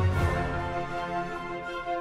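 Background music: sustained notes over a low, pulsing beat, with a new accent at the start.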